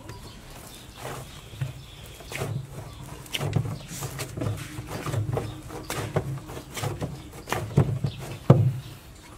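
A large lump of dough being kneaded and shoved about in a metal trough, giving irregular dull thumps about every half second, the loudest about a second before the end.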